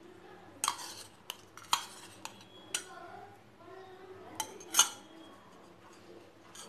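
Steel spoon clinking about seven times against metal as ghee is spooned into a pan of carrot halwa batter, the loudest clink near the end. A wooden spatula stirs the batter between the clinks.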